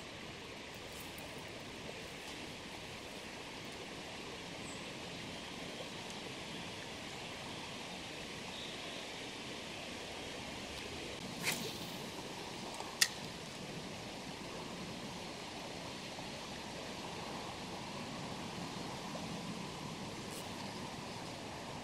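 Steady rushing of a shallow river flowing. A little past the middle come two short sharp clicks about a second and a half apart, the second louder.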